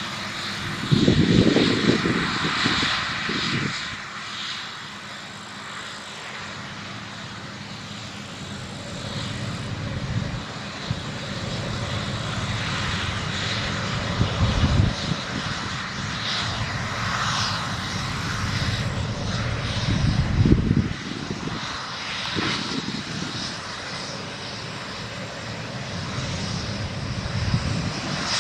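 Claas Lexion 670 combine harvester running under load while it harvests barley: a steady machine drone of engine and threshing gear with a hissing upper layer, and two louder low rumbles, one about a second in and one around twenty seconds in.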